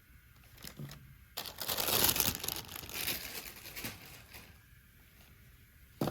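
Packaging being handled during an unboxing, crinkling and rustling for about three seconds, loudest near the start. A sharp click comes near the end.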